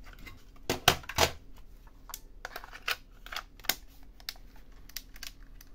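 Sharp plastic-and-metal clicks and clacks from handling a Sony WM-EX674 cassette Walkman: a cassette handled in its open metal lid, the lid closed and the front buttons pressed. The loudest clicks come about a second in, followed by lighter scattered clicks.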